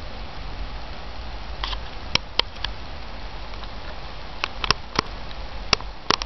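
Steady background hiss and low hum, with short sharp clicks scattered through the second half, some in quick pairs.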